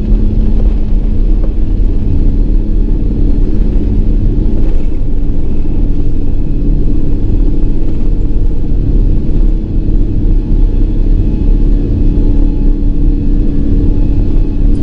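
Airbus A380-800 take-off heard inside the cabin: a loud, steady low rumble and drone from the engines at take-off power as the aircraft ends its take-off roll and climbs away.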